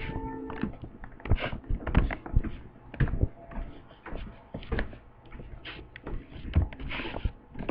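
A string of irregular knocks and clicks, several a second, with rustling between them.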